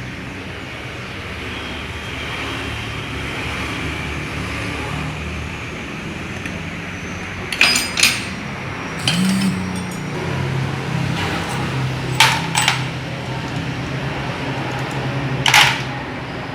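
About half a dozen sharp metal clinks of tools and parts being handled during scooter gearbox repair work, over a steady low hum.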